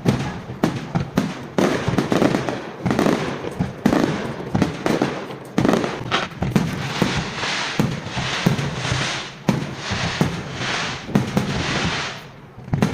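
Fireworks display: shells bursting in rapid, repeated bangs, with crackling between them that thickens in the second half.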